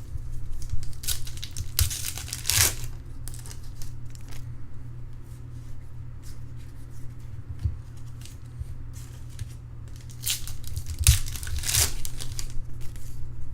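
Trading card pack wrapper being torn open and crinkled, in two spells of tearing a little after the start and again near the end, over a steady low hum.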